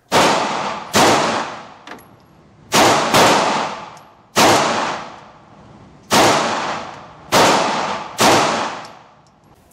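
CZ 75 Compact 9mm pistol fired eight times at an uneven pace, each shot echoing briefly off the walls of an indoor range.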